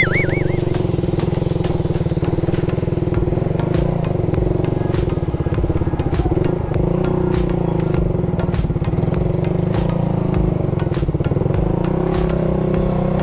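Motorcycle engine running steadily as it climbs a rough uphill road, with frequent short clicks and rattles over it.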